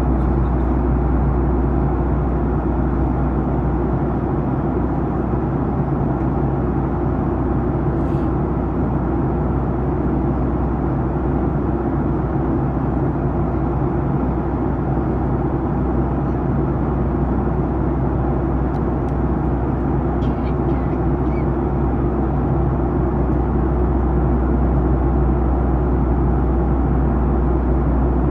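Steady cabin noise inside a Boeing 737-900ER in descent: the drone of its CFM56-7B engines and the airflow over the fuselage, with a low steady hum underneath and a few faint clicks.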